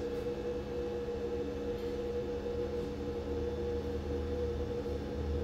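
Steady machine hum holding several tones, with a low rumble that grows louder near the end.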